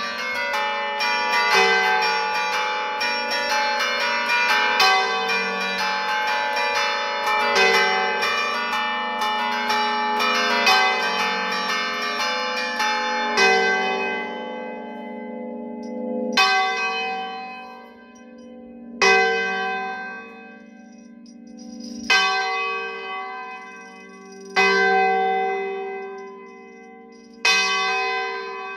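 Church bells in a tower played by hand from a baton keyboard: a fast, dense peal of many overlapping notes. About halfway through, the quick playing stops and the ringing dies away. Single bell strokes follow about every three seconds, each ringing out and fading, as a bell swings.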